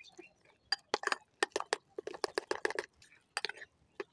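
Metal spoon stirring thick gram-flour batter in a glass bowl: irregular wet slaps and squelches with sharp clicks of the spoon against the glass, busiest in the middle.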